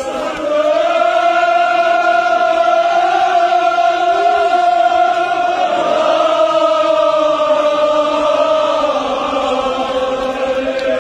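A crowd of men chanting together in unison, in long drawn-out phrases, a new phrase starting about six seconds in.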